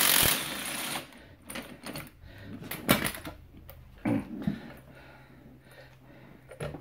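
Earthquake 20V cordless impact wrench hammering on a strut spring compressor's bolt, backing it off, and stopping about a second in. After that come scattered metal knocks and clinks as the compressor and coil-spring strut are handled, the sharpest a little before halfway.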